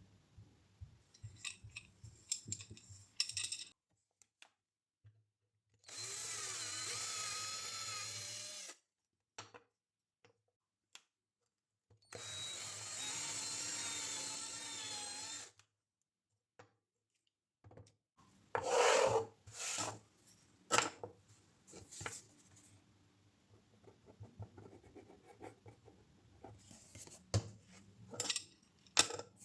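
A small electric power tool runs twice, about three seconds each time, its motor whine wavering under load. Between and after the runs come scattered clicks and knocks of workshop handling.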